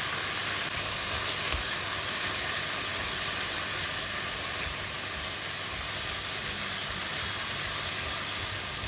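Diced chicken breast sizzling steadily in oil in a pan, the spices just mixed in, while the juices the meat has released are still cooking off.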